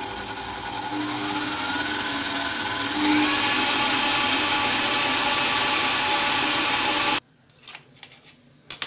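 Stand mixer motor running, beating a thick chocolate and crème pâtissière mixture in a glass bowl. Its pitch climbs and it steps louder about three seconds in as the speed is raised. It cuts off suddenly near the end, leaving only faint handling sounds.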